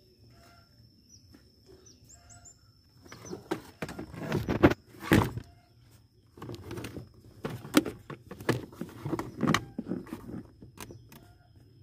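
Sharp clicks and knocks of hard plastic under-dash trim being worked loose with a screwdriver, in two bursts after a quiet start. The loudest knocks come around the middle.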